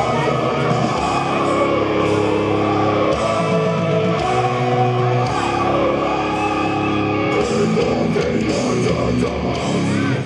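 Loud rock music with guitar and singing, in a heavy-metal style, stopping abruptly at the end.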